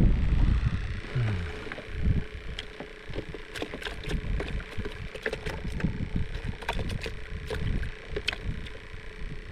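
Wind buffeting the microphone on a fishing kayak, in gusts, strongest at the start, with scattered small clicks and knocks throughout.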